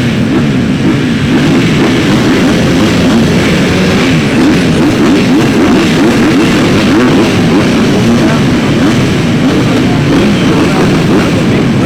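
Several supercross dirt bikes running hard around the track, their engine notes rising and falling in pitch over and over as the riders rev and shift.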